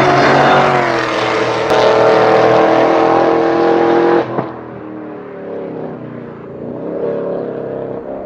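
Car engine pulling hard at high revs, its pitch dipping briefly near the start and then holding, until about four seconds in the throttle is lifted and the sound drops off sharply to a quieter, wavering running.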